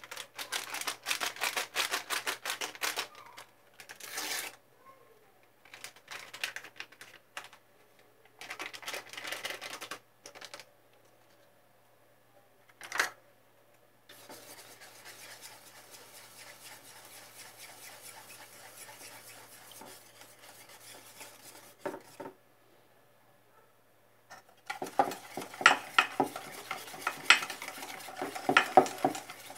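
Food being mixed in a stainless steel bowl. After a few short bursts of handling noise, dry flour is rubbed by hand with a steady soft rustle for several seconds. Near the end a utensil beats a wet dough mixture, clinking rapidly against the metal bowl.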